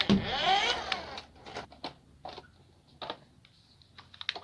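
Small electric motor of a toy RC car whining up and down in pitch for about a second, followed by a string of light clicks and knocks, then quiet with a few more clicks.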